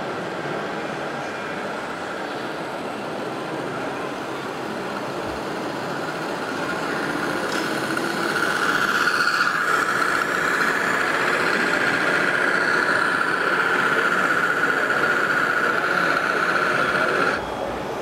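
Radio-controlled model tipper truck driving, its electric drive giving a steady high whine over the din of a busy hall. The whine grows louder about halfway through and cuts off abruptly near the end.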